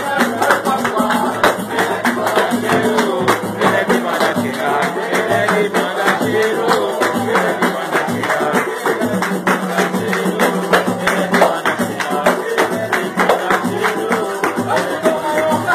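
Live samba: a group singing to pandeiro, cavaquinho and hand-clapping, with a quick, steady percussion beat.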